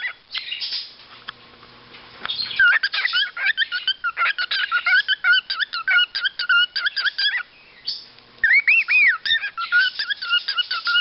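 A male cockatiel singing to himself: fast runs of short, repeated chirps, broken by two brief pauses, with a pair of longer rising-and-falling whistles about nine seconds in.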